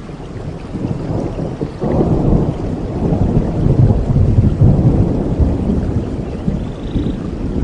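Rolling thunder over steady tropical rain: a deep rumble that swells about two seconds in and slowly fades toward the end.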